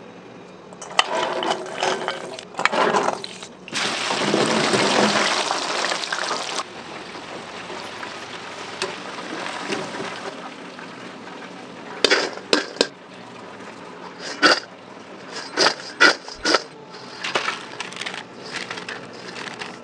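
Hot oil in a commercial deep fryer sizzling loudly for a few seconds, then settling into a quieter steady bubbling. After that comes a run of sharp clinks and clatters from the metal fry basket and bowl as the cooked crinkle-cut fries are handled and tipped out.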